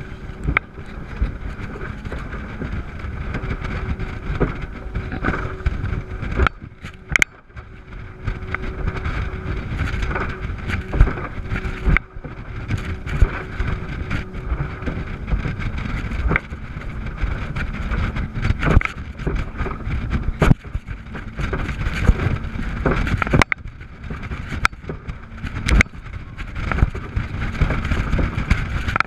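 Rigid inflatable speedboat under way on choppy water: a dense rushing noise with many sharp knocks as the hull slams into the waves, over the steady drone of its twin 350 hp Yamaha V8 four-stroke outboards.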